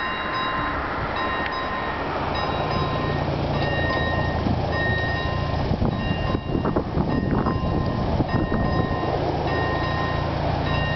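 Railway level-crossing warning bell ringing in short, repeated tones while the crossing barriers come down. A car engine hums low underneath it from a few seconds in.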